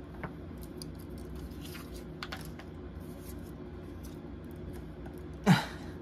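Faint clicks and light taps of tarot cards being handled and set down, with one much louder sharp knock about five and a half seconds in, over a steady low hum.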